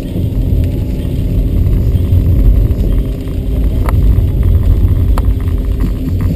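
Steady low rumble of a car's engine and tyres on a wet road, heard from inside the cabin. Two faint clicks come in the second half.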